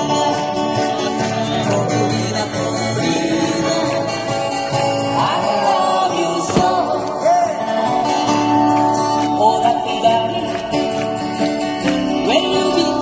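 A live acoustic-guitar band playing through PA speakers: several acoustic guitars strummed under sung vocals, a folk or country-style song.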